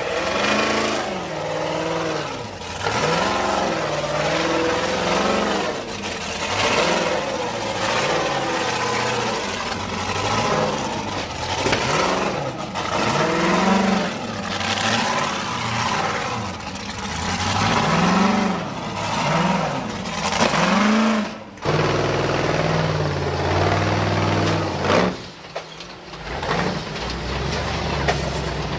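Unlimited-class rock racing car's engine revving up and down in repeated bursts as it climbs over boulders. About two-thirds of the way through, the sound changes suddenly to another car's engine running lower and steadier.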